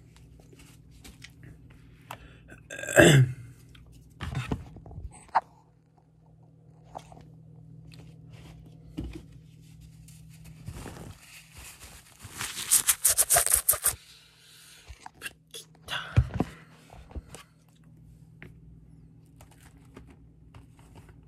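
Close-up handling noises: scattered scrapes, crackles and clicks from hands working small objects, with a dense two-second run of rapid scraping about twelve seconds in. A brief, loud vocal sound comes about three seconds in.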